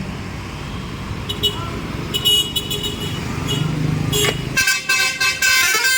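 Low road rumble with a few short high toots, then about two-thirds in a bus's Basuri telolet horn, fitted with upper trumpets, plays a loud, quick melody of stepped notes.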